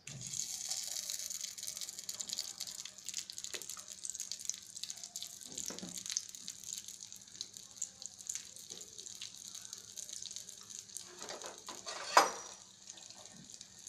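Fermented rice-and-urad batter for punugu frying in hot oil in a pan: a steady sizzle that starts suddenly as the batter drops in, with a brief louder burst about twelve seconds in.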